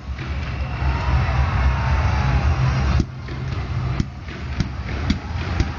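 Fireworks going off close by: a dense rushing hiss with a low rumble for about three seconds, then a string of sharp bangs and crackles about half a second apart.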